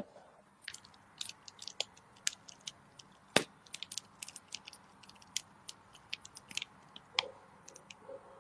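A piping bag of chocolate whipped cream crinkling and squishing as it is squeezed onto a cupcake: a scattered string of small sharp crackles, one louder about a third of the way in. A single sharp knock at the very start, where the cupcake pan is handled on a wire cooling rack.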